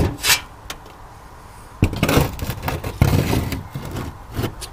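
Machete blade hacking and scraping grapevine shoots off the aluminium edge of a corrugated roof panel: a few sharp knocks, two rough scraping strokes about two and three seconds in, then a couple more knocks near the end.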